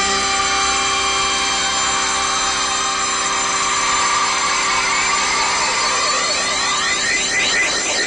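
Soundtrack music: steady held chords with a sweeping whoosh that builds over the last few seconds.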